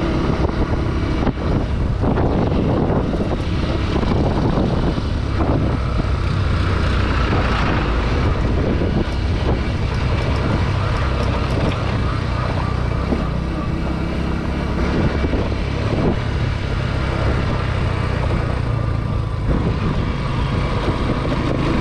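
Motorcycle running while being ridden at road speed: a steady low engine and road drone with no clear changes in pitch.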